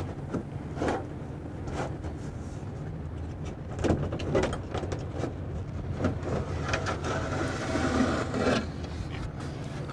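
Light knocks, clicks and rustles of a metal electronics control box being lifted off its mounting studs and worked out of a sign cabinet, brushing against its cables and the cabinet frame. A steady low rumble runs underneath.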